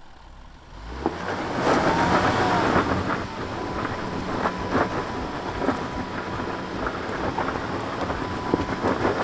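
Range Rover L405 crawling over loose rock: tyres crunching and grinding on gravel and stones, with crackles, knocks and a low rumble, and a faint steady whine through the middle. It starts about a second in.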